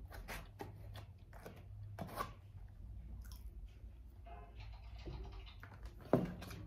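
A person eating soft cake off a fork: chewing and mouth sounds with small clicks of the fork, and one sharper knock near the end.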